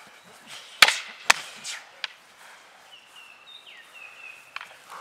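Fighting sticks striking hard in a full-contact bout: two sharp cracks about half a second apart a little under a second in, then a lighter strike about two seconds in and another near the end.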